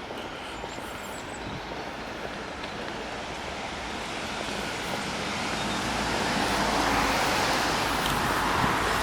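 Road traffic noise, an even tyre-and-engine rush that grows steadily louder through the second half as a vehicle approaches.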